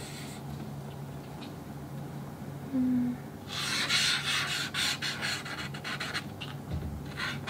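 Rubbing and scratching on a shikishi art board. It starts about halfway through, runs for about three seconds and is followed by a few lighter scratches.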